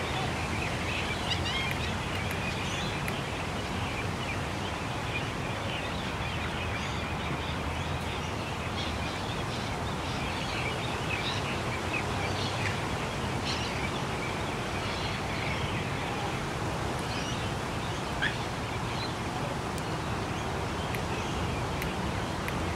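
Many birds chirping and twittering all through, over a steady low hum of distant traffic, with one slightly louder call about three quarters of the way through.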